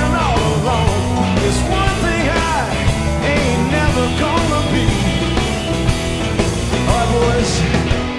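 Live blues-rock band playing loudly, with a lead electric guitar line of bending, sliding notes over bass and drums. The band gets quieter near the end.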